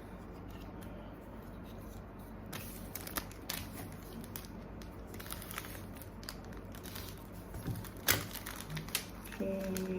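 Gachapon prize packaging being opened by hand: plastic rustling, crinkling and tearing, with scattered small clicks and a sharper snap about eight seconds in.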